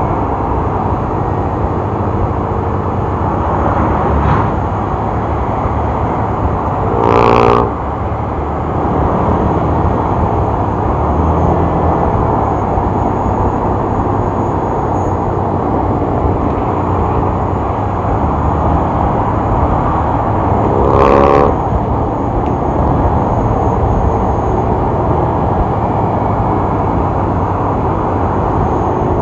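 Steady engine and wind rush of riding along on a motorcycle behind minibuses. A vehicle horn sounds twice, each time for under a second: about seven seconds in and about twenty-one seconds in.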